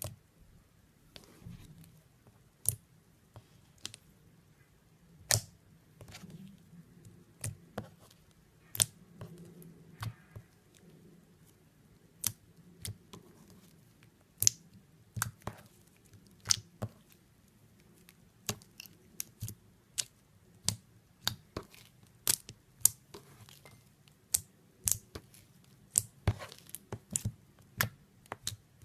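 Slime being worked by hand, giving sharp, irregular clicking pops, sparse at first and coming faster in the second half.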